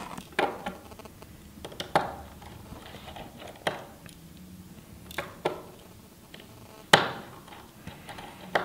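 A small precision screwdriver and tiny screws clicking and tapping against an iPhone 6 screen's metal backplate and the work surface as the screws at the base of the screen are taken out. There are about seven sharp clicks, the loudest about seven seconds in.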